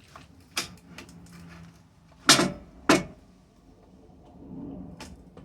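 Chainsaw parts being handled during reassembly: a light click, then two sharp hard knocks about half a second apart a little over two seconds in.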